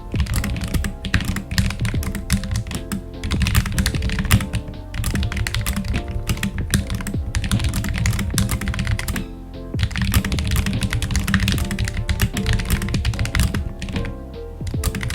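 Fast touch typing, about 106 words a minute, on a mechanical keyboard with blank OEM-profile keycaps: a rapid, thocky stream of key clacks that breaks off briefly about nine seconds in. Background music plays underneath.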